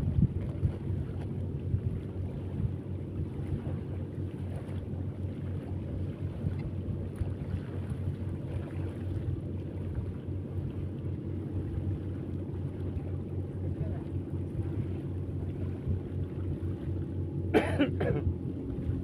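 Steady low rumble, like a boat's motor running, with wind on the microphone. A short, sharp, high sound cuts through it about a second and a half before the end.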